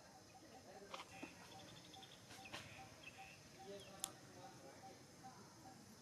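Near silence: faint background ambience with a quiet chirping repeated about four times a second, and a few soft clicks, the sharpest about four seconds in.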